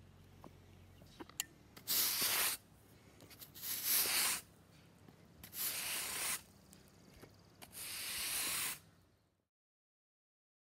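Push broom with synthetic bristles sweeping an asphalt driveway: four long swishing strokes about two seconds apart. Near the end the sound cuts out to dead silence.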